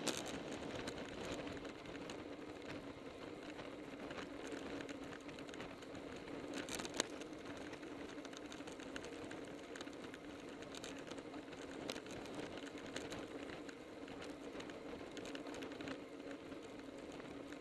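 Riding noise of a road bicycle at about 25 mph on asphalt: a steady tyre hum and rush, with scattered sharp clicks and ticks from the bike, the sharpest about seven seconds in.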